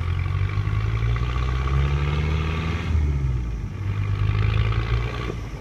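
Safari Land Rover's engine running under load as the vehicle reverses away, its pitch rising about halfway through, then dropping and climbing again.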